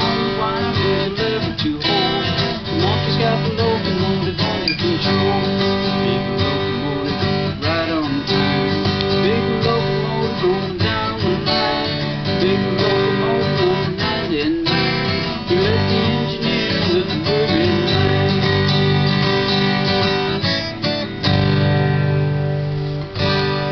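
Instrumental acoustic guitar break, strummed and picked, with some sliding notes.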